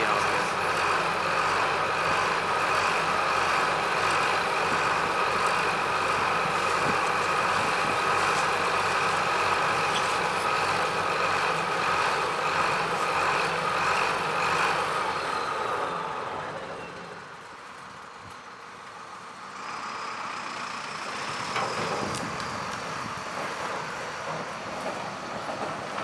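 Combine harvester running while harvesting corn: a steady mechanical drone with a high, held whine. About sixteen seconds in it fades away, and a few seconds later a fainter machine sound comes back in.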